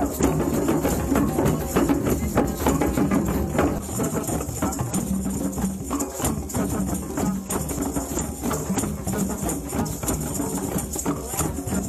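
Hand percussion played in a fast, busy rhythm, with steady tambourine-like jingling over the drum strokes.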